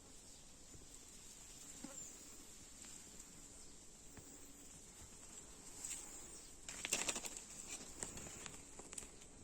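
Outdoor garden ambience: a steady high insect hiss, with a burst of rustling and crackling about seven seconds in.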